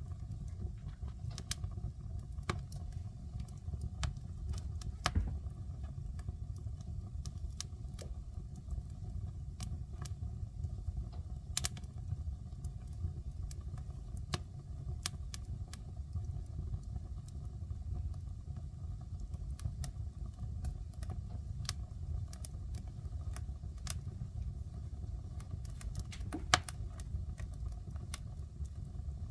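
Wood fire burning in a fireplace: a steady low rumble of the flames with irregular sharp crackles and pops, a louder pop about five seconds in and another near the end.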